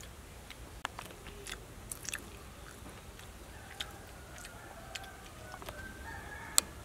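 Eating sounds: scattered sharp clicks and taps of chopsticks and a spoon against foil-wrapped grilled salmon, with chewing. A single sharp click near the end is the loudest.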